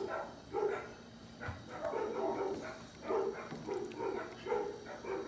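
A small dog barking in a string of short yaps, about one or two a second.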